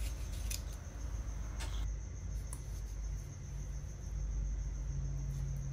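Double-edged knife slicing firm, fresh bananas by hand into thin slices: a few crisp cuts about a second apart. The bananas are still hard, which makes the cuts crisp.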